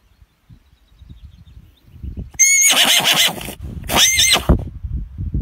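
A foal whinnying twice: two high, wavering calls about half a second apart, beginning a little before halfway through, over low rumbling noise.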